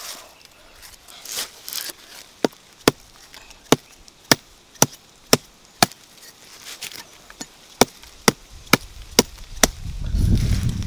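Sharp chopping knocks at about two a second, in two runs, as hard dry soil is dug away from a cassava root. Near the end comes a louder, low rubbing rumble of soil being scraped by hand.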